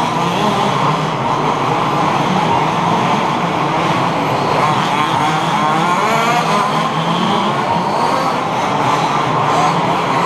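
Several 1/5-scale HPI Baja RC buggies with small two-stroke petrol engines racing together, many engines overlapping in a continuous buzzing whine whose pitches keep rising and falling as they throttle up and back off.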